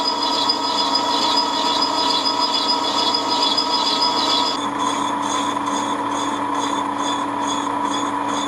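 Metal lathe running with an aluminium workpiece spinning in the chuck while its centring band is turned away: a steady machine hum with a high whine that pulses quickly, the pulsing changing character about halfway through.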